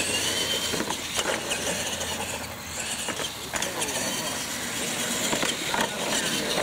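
Radio-controlled monster trucks running flat out, their motors whining with a rising pitch near the start, with sharp knocks as the trucks hit and land off the jumps.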